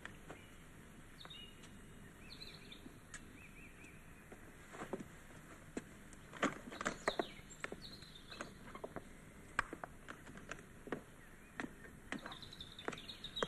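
Faint outdoor background with a few short bird chirps. From about five seconds in come scattered, irregular knocks and clicks.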